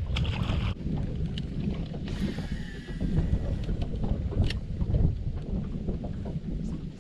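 Wind rumbling and buffeting on the microphone out on open water, with a few light clicks scattered through it.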